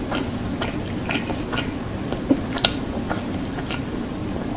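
Close-miked chewing of a fried chicken burger: soft wet mouth clicks about twice a second over a steady low hum.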